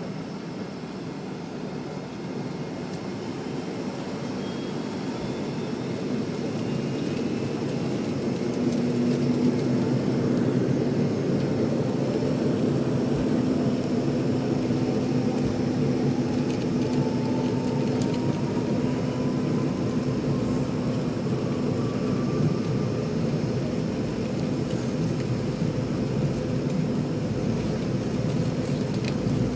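Jet airliner engines spooling up for takeoff. The engine noise grows louder over the first ten seconds and then holds steady, with a deep hum underneath and a faint whine that slowly rises in pitch.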